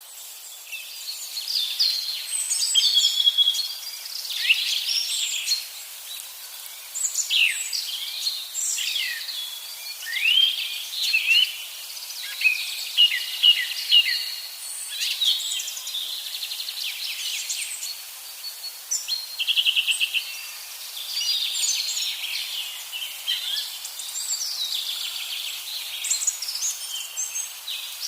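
Songbirds singing: a steady run of short chirps, quick up-and-down sweeps and fast trills, one after another, over a faint hiss.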